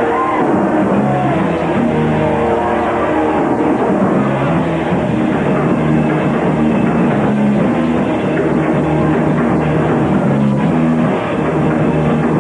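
Punk rock band playing live, loud and continuous: electric guitar, bass guitar and drum kit.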